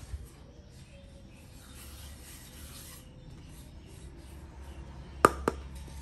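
Wooden kitchenware being handled: faint rubbing and scraping of wood, then two sharp wooden knocks about a quarter second apart near the end.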